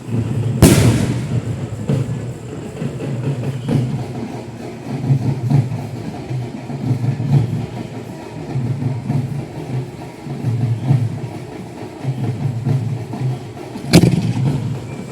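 Two loud bangs of 6-inch aerial display firework shells bursting, one about half a second in and one near the end, each ringing on briefly. Between them a low rumble swells and fades every second or two.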